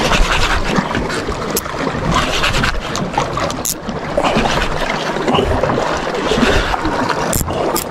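Wind buffeting the microphone over water moving around a small boat, with a few sharp ticks.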